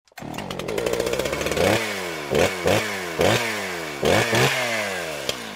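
A small engine revved in repeated blips: it runs steadily, then about six times the pitch jumps sharply up and slides back down before fading out near the end.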